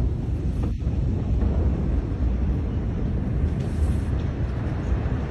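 Steady low rumble mixed with wind buffeting on a phone's microphone, with no sharp blast in it.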